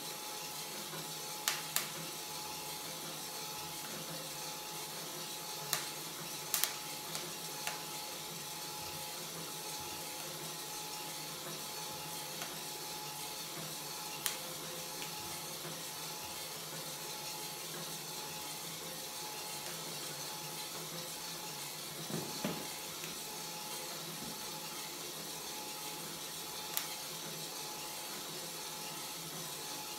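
Kaldi Mini drum coffee roaster running over an Iwatani 35FW butane burner: a steady hiss with a faint constant hum from the motor-turned drum, and a few scattered sharp clicks.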